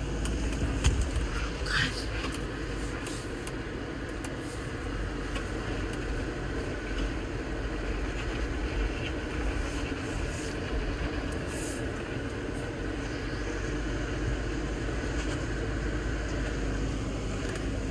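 Jeep Wrangler Rubicon driving, a steady low rumble with scattered clicks and rattles.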